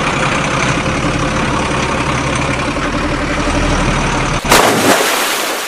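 Truck engine sound effect running steadily. About four and a half seconds in it cuts off into a loud splash, the toy dump truck landing in the water, which fades away over about a second.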